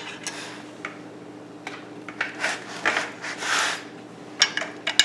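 Aluminium frame of an Anycubic Vyper 3D printer being handled and slid on a wooden table: a few light clicks and knocks, and several short scraping rubs between about two and four seconds in, over a low steady hum.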